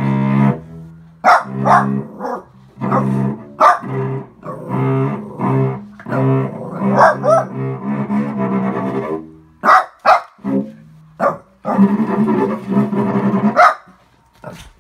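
A Shih Tzu puppy barking again and again at a cello being bowed; short barks cut over the cello's held notes.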